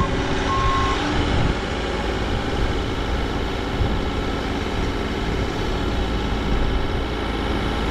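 Bobcat compact excavator's diesel engine running steadily, with a backup alarm beeping briefly in the first second.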